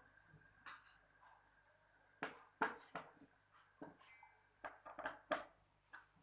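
Irregular clatter of hard objects being handled and set down, about a dozen sharp knocks and clicks, the loudest about two and a half seconds in and a quick run of them near the end.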